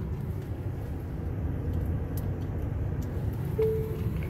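Low steady rumble inside the cabin of a Tesla Model X as it drives itself slowly during Autopark, with one short tone about three and a half seconds in.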